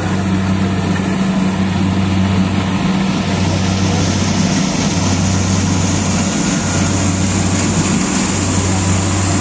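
Kubota Harvesking DC-68G combine harvester running while cutting rice: a steady diesel engine drone over the noise of the cutting and threshing gear. A deeper hum under it swells and drops at a slow, even beat of roughly one every one and a half seconds.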